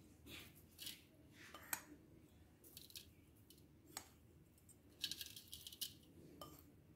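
Faint rustling and a few light clicks as powdered homemade spice mix is shaken out onto raw fish pieces in a bowl, with a denser stretch of rustling about five seconds in.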